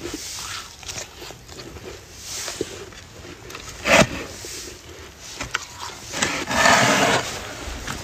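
Fresh snow crunching close to the microphone as it is scooped up by hand and bitten and chewed, with a sharp loud crunch about four seconds in and a longer stretch of crunching about two seconds later.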